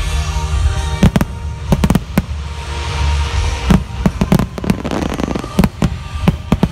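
Fireworks display: a dozen or more sharp bangs of shells bursting at irregular intervals, with a crackling hiss of showering sparks around the middle.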